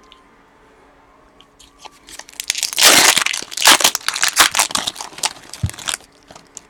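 Foil trading-card pack wrapper being torn open and crinkled by hand, a crackly tearing and rustling that starts about two seconds in and lasts a few seconds.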